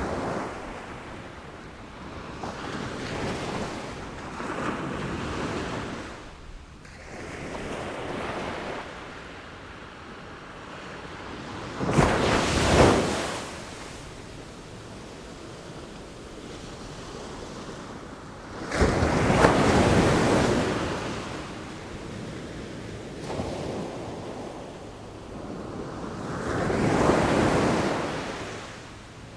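Sea waves breaking and washing up in repeated surges, with wind. The two loudest crashes break suddenly about twelve and nineteen seconds in, and a softer swell builds near the end.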